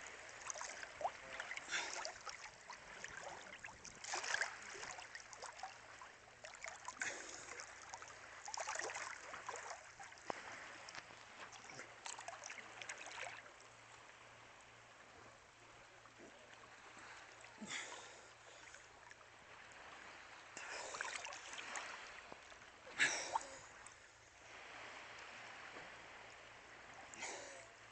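Sea water lapping and sloshing in irregular swells, every second or two.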